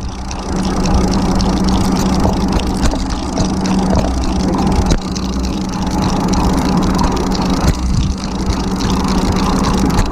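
Fishing boat's engine running steadily with a constant low hum, mixed with a noisy rush and scattered small clicks and knocks.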